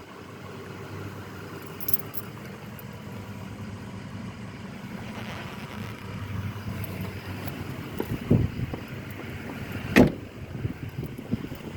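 A 2012 Ford Focus's engine idling steadily, with a few knocks and one sharp thump about ten seconds in.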